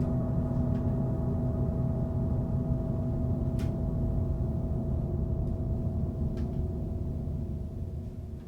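A steady low drone of several held tones over a rumbling bass, with a faint tick about three and a half seconds in. It fades out near the end.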